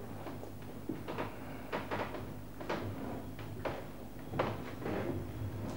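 Faint, irregular taps and knocks, a dozen or so spread unevenly, over a low steady hum.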